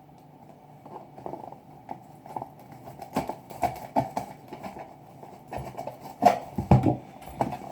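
A webcam's retail box being opened and handled: irregular knocks, taps and scrapes of packaging under the hands.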